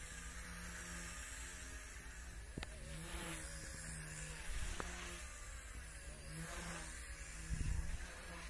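Small electric RC helicopter (WLtoys V933) buzzing in flight, its motor and rotor whine rising and falling in pitch as it manoeuvres. A low rumble swells near the end.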